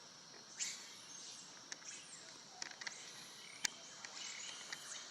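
Steady high insect drone with scattered short chirps and clicks; one sharp click about three and a half seconds in.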